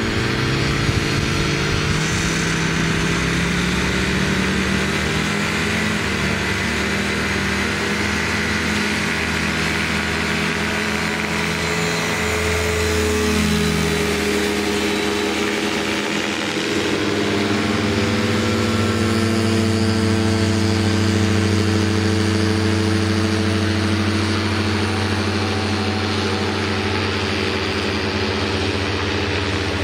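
Paratrike's engine and propeller running hard through the takeoff: the pitch climbs in the first few seconds, shifts as the craft passes close about 13 seconds in, then holds steady as it climbs away.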